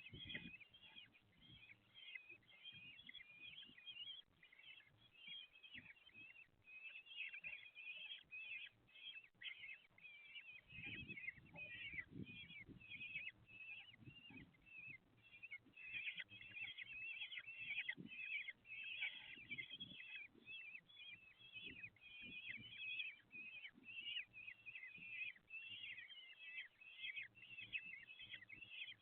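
Common kestrel chicks calling steadily in a rapid, high-pitched chatter, many calls a second, as they beg for food. Low knocks and rustling from movement in the nest box come about eleven seconds in and again near twenty seconds.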